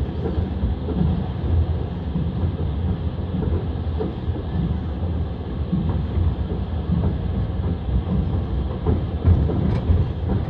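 Passenger train running at speed, its wheels rumbling steadily on the rails and clacking over the rail joints, with one sharper click near the end.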